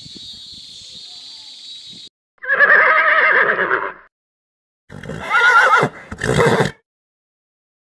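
Two loud animal calls: the first lasts about a second and a half, the second has a wavering pitch and breaks in two. Before them a steady high hiss cuts off abruptly about two seconds in.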